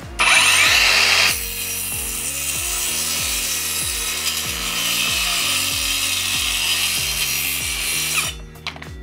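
Akaido AKCS125BL 21V cordless 5-inch (125 mm) circular saw cross-cutting a pine 2x4. It starts loudest for about a second as the blade spins up and bites, then gives a steady cutting sound for about seven seconds and cuts off shortly before the end.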